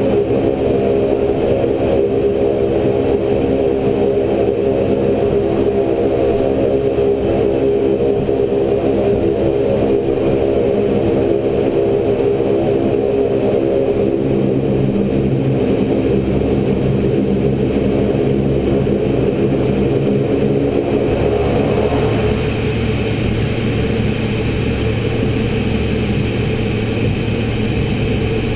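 Saab 340's twin General Electric CT7 turboprop engines and propellers droning steadily, heard inside the cockpit as a stack of steady tones over a low rumble. About 22 seconds in the even tones give way to a rougher, slightly quieter sound.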